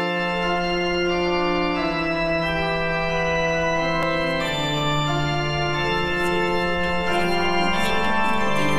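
Slow intro music of sustained organ chords, the held chords changing every few seconds over a steady bass note.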